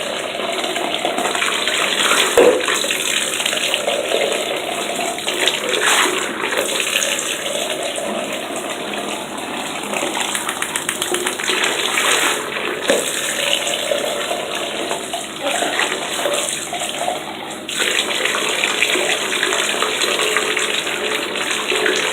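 Tap water running steadily into a bath while shampoo is rinsed off a small dog.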